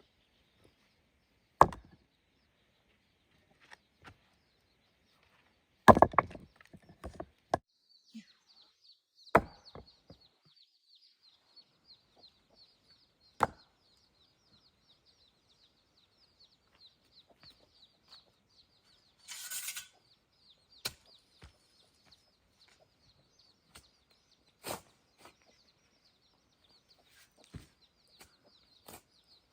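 Scattered sharp knocks and chops of hand-tool building work, irregular and a few seconds apart, with chickens clucking. A steady high chirring sets in about eight seconds in, and there is a short rasping noise near the middle.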